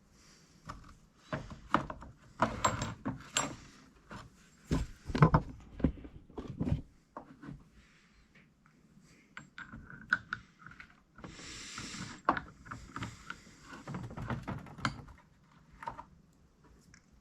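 Small metal parts of a VW rocker arm assembly clinking and knocking as the rockers, washers and shaft are handled and fitted together. A short scraping sound comes about eleven seconds in.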